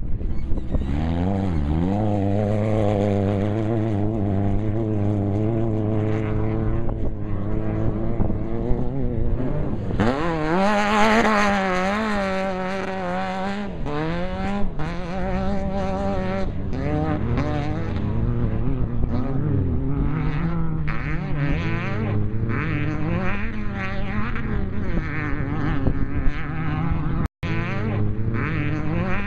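Off-road race vehicle's engine running hard at speed, its pitch rising and falling over and over as the throttle is worked, with one sharp climb in revs about a third of the way through. The sound cuts out for an instant near the end.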